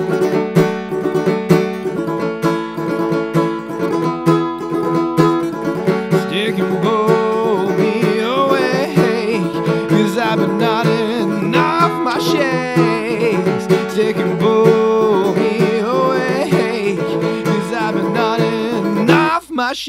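Acoustic song: steady plucked-string accompaniment, with a wavering sung melody coming in about six seconds in.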